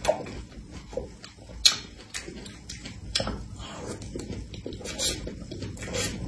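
Close-miked mouth sounds of eating strawberry cream cake: irregular wet smacks and clicks of lips and tongue while chewing, with one sharp click about a second and a half in.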